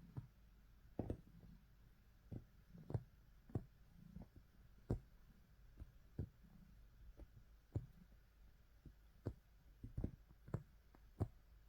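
Cat kneading on bedding: faint, irregular soft thumps and clicks, about one or two a second.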